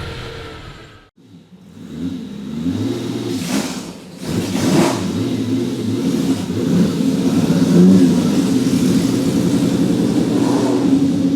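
Ferrari 250 GT SWB's 3-litre Colombo V12 accelerating hard, revs climbing, dropping briefly at a gear change about four seconds in, then climbing again and held high. The sound cuts out briefly about a second in.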